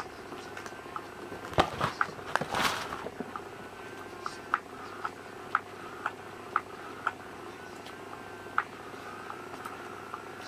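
Fabric cat play tunnel rustling for about a second and a half, a couple of seconds in, as it is shoved about. Light ticks follow, several of them about half a second apart.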